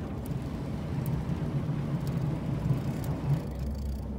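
Boat's inboard engine running with a low, rough rumble that swells for about three seconds and then settles back.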